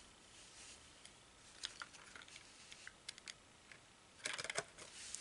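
Faint clicks and taps of a glass Yankee Candle jar being handled and turned over in the hands, with a quick run of clicks about four seconds in.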